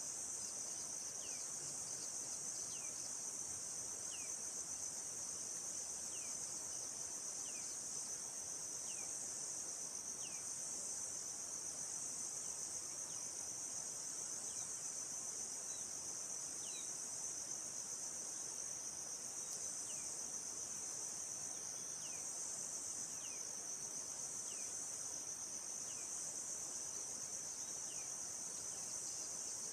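Steady high-pitched insect chorus, crickets or cicadas, with a bird repeating a short falling whistle about every second and a half, pausing briefly partway through.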